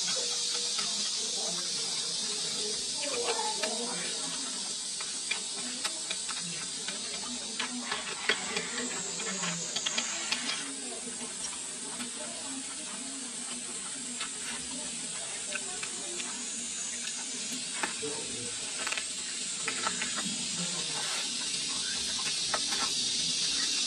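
Eating sounds up close: chewing and lip-smacking on fried chicken legs, with many short sharp clicks that come in two clusters, over a steady high hiss.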